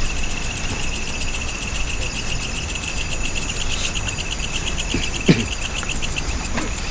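Crickets chirping in a steady chorus of rapid, even pulses over a low rumble. A single sharp knock sounds about five seconds in.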